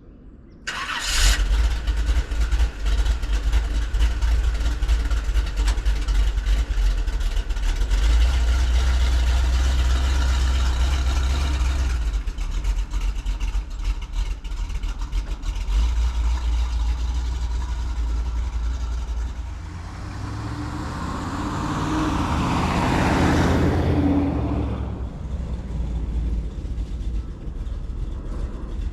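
Willys truck engine cranking to life about a second in, then running with a loud, steady low rumble. About twenty seconds in the engine note rises and falls once, then settles back to a steady run.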